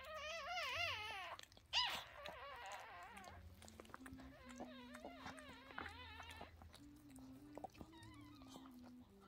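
Newborn Yorkshire terrier puppies crying in high, wavering squeals. The loudest cry comes in the first second and a half, then fainter warbling cries follow through the middle and die away near the end.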